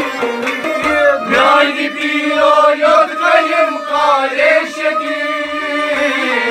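Kashmiri Sufi music: men singing a chant-like melody with harmonium, bowed sarangi and plucked rabab, while a clay pot drum (noot) beats a steady low rhythm underneath.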